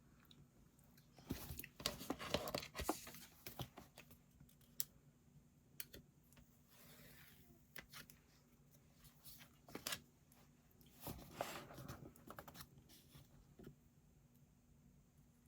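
Quiet paper rustling and light clicks and taps in scattered clusters, the busiest about a second in and again near the eleven-second mark: a paper book being handled.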